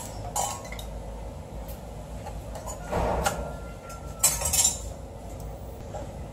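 Kitchen clatter of dishes and utensils: a click near the start, a knock about three seconds in, then a few bright clinks a little after four seconds.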